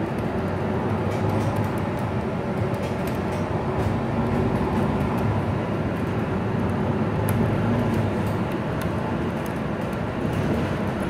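Interior running noise of a MAN NL323F Lion's City bus under way: its diesel engine and tyres on the road make a steady drone, with light rattles and clicks from the cabin.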